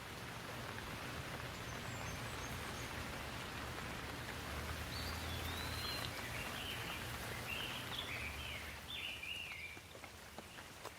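Steady rain hissing, building up over the first couple of seconds and easing near the end. A bird calls in a run of short chirps from about five to nine seconds in. There are a few faint crackles near the end.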